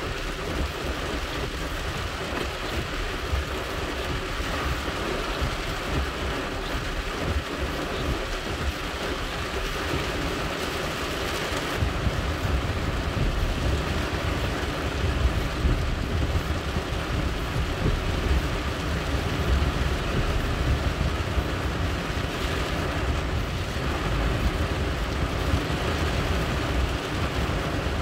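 Heavy rain falling on a car's roof and windscreen, heard from inside the cabin as a steady hiss. A deeper low rumble joins in about halfway through.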